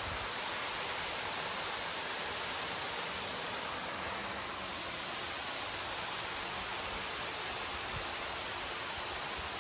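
Steady rush of river water flowing out below the dam, an even hiss that cuts off abruptly at the end.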